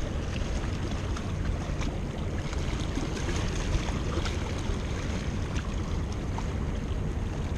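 Steady wind rumble buffeting the microphone, with faint scattered ticks.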